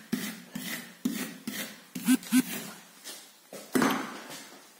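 A steel trowel spreading and scraping gypsum plaster across a wall in quick repeated strokes, about two a second. Two louder strokes come a couple of seconds in and another near the end.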